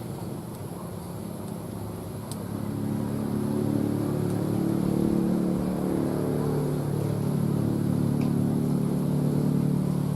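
A motor engine running steadily, getting louder about two and a half seconds in and then holding at an even pitch, with a few faint clicks.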